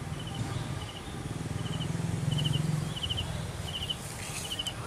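Rhythmic chirping: short chirps of three or four quick pulses, repeating about every half second to second, over a low steady hum of background noise that swells midway.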